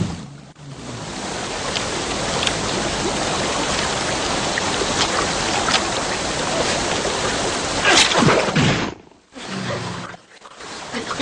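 Rushing river water: a steady hiss of fast rapids, with a louder burst about eight seconds in and a short drop-out soon after.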